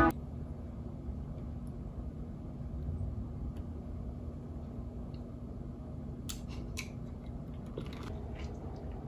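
Quiet room hum, and about six seconds in a few short, crisp crunches of a tortilla chip being bitten and chewed.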